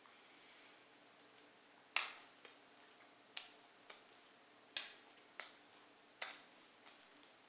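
Playing cards dealt one at a time onto a stone countertop: a series of about eight sharp slaps, spaced roughly half a second to a second apart, starting about two seconds in.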